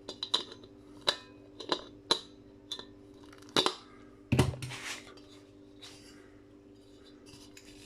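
Brass scrap fittings knocked and clinking against tools and each other as they are handled and worked apart: a run of sharp metallic clicks and knocks in the first five seconds, then quiet handling, over a steady low hum.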